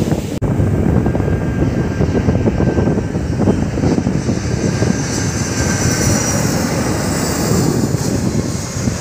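Jet airliner passing low overhead as it descends to land: a steady loud engine rumble with a faint high whine that slides slowly down in pitch. The sound drops out briefly about half a second in.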